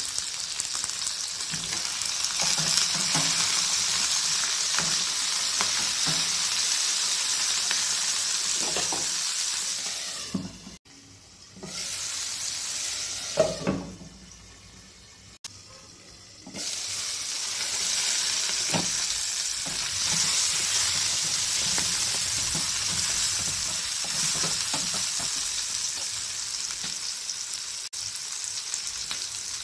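Capsicum pieces sizzling in hot oil in a frying pan, a steady hiss. About a third of the way in the sizzle drops away twice for a second or two, as a glass lid covers the pan, with a knock in between.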